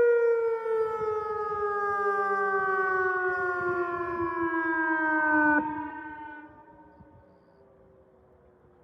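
Outdoor tornado warning siren winding down at the end of its test: one long falling tone with overtones, which drops off sharply about five and a half seconds in and fades out within another second or so.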